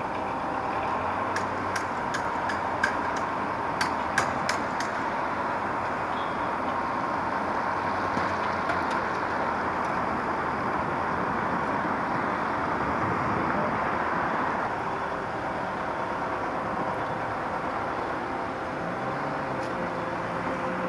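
Steady street traffic noise with a vehicle engine running, and a few sharp clicks between about two and four and a half seconds in.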